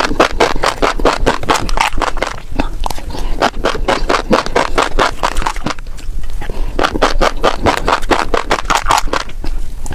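Fish roe handled close to the microphone: quick runs of wet popping and crackling clicks, in clusters with short lulls between.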